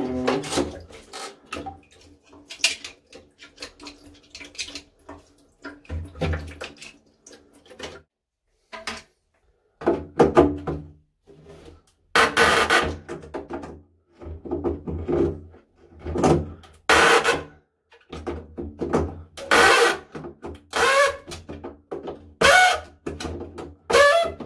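Pliers gripping and turning the stiff plastic nut that holds a toilet cistern's ball-valve arm: irregular scraping, creaking and clicking of the tool on plastic, with knocks of the fittings against the ceramic cistern. The bursts come in stops and starts as the nut is worked loose.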